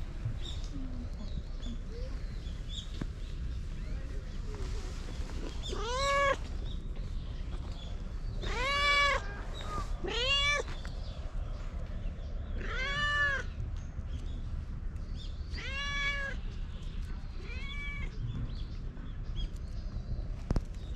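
Stray tortoiseshell cat meowing six times, every two to three seconds, each meow rising and then falling in pitch, while being stroked.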